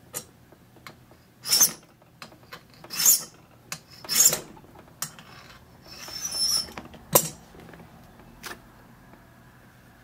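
Hand file rasping across a brass key blank held in an impressioning handle, four separate strokes in the first seven seconds, with a few sharp clicks among them. The file is cutting the third position of the key deeper, down to depth four.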